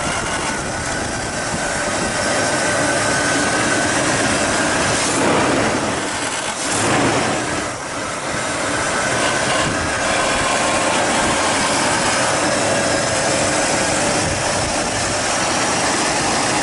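GM 305 cubic-inch (5.0 L) four-barrel V8 idling steadily, heard over the open engine bay.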